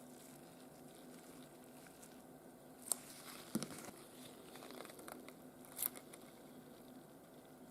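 Faint small handling noises: light rustling and three sharp clicks, a few seconds apart, over a steady low hum.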